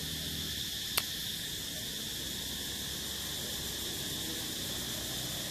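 Insects calling steadily in a high, even band, with one sharp click about a second in.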